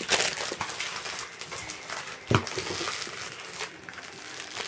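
Crinkly plastic candy wrapper rustling as it is handled, loudest near the start, with a brief thud about two seconds in.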